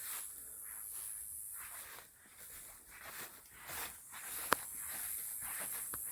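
Footsteps crunching through freshly cut grass and yard debris, a few per second, with one sharp click about four and a half seconds in.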